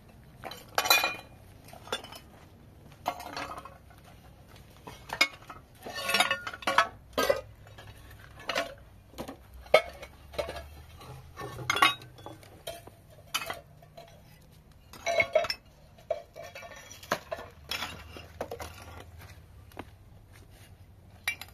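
Pieces of broken fired clay knocking and clinking against each other as they are picked up and stacked by hand: sharp, irregular clinks, sometimes in quick clusters, with gaps of a second or so.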